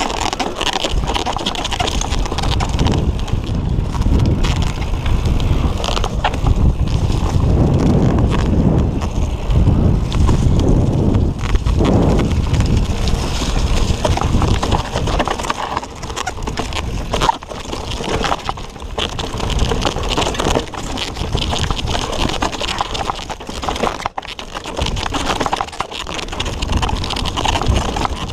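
Mountain bike riding fast over a dirt singletrack: tyres rumbling on the ground, with frequent knocks and rattles from the bike as it goes over bumps.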